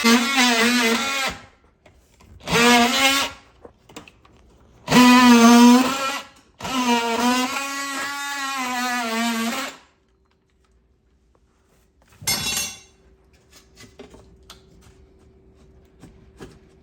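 Handheld electric power tool cutting, its motor run in four bursts of a second or a few seconds, the pitch sliding as it spins up. A short harsh burst follows a couple of seconds after the last run, then faint ticks and a low hum.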